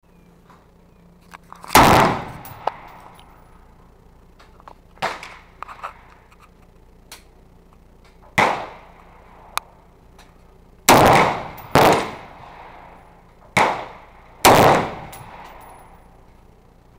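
Smith & Wesson M&P15 Sport AR-15 rifle firing single 5.56 mm shots: about six loud cracks at uneven spacing, a second to several seconds apart, each ringing out under the covered range's roof. Fainter cracks and clicks sound between the loud shots.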